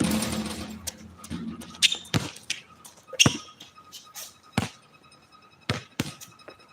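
Basketball bouncing on an outdoor court: about six separate sharp bounces at uneven intervals, from roughly a second to a second and a half apart.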